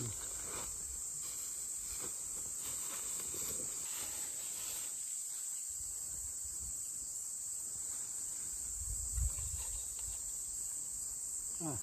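Steady high-pitched chirring chorus of insects in the grass, with faint rustles and a soft low knock about nine seconds in as offering dishes and cups are set down on the ground.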